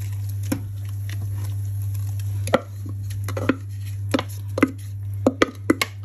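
Wooden spoon scraping and tapping chopped sweet peppers out of a food processor bowl into a pot of blended pepper mixture: irregular knocks and scrapes that come closer together near the end, over a steady low hum.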